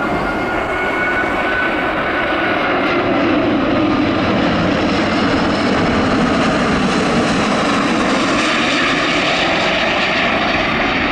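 Jet airliner's engines roaring loudly and steadily as it passes, with a high whine early on that slides slightly lower in pitch.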